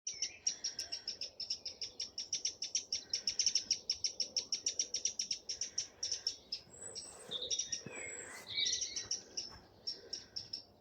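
Songbird singing: a fast run of high repeated notes, about eight a second, for most of the first six seconds, then scattered chirps and high whistles, and the fast run of notes again near the end.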